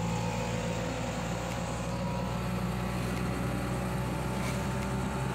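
Steady engine hum and road noise heard from inside a moving vehicle.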